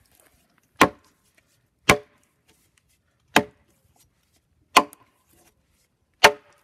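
A light axe chopping into the side of a small log, hewing off the wood between the notches, five sharp strikes about one to one and a half seconds apart.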